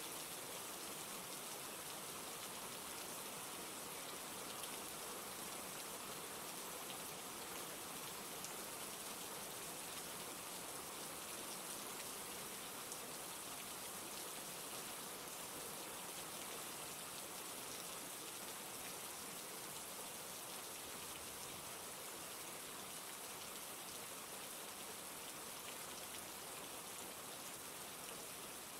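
Steady rainfall, an even hiss of rain with scattered individual drops ticking through it.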